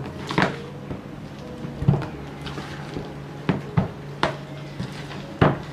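A spoon stirring and folding ice cream and cream in a plastic bowl, knocking and scraping against the bowl's side about half a dozen times at irregular intervals, over a steady low hum.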